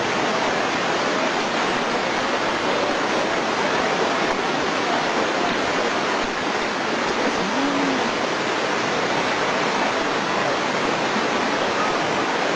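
Fast-flowing floodwater rushing, a steady even noise throughout.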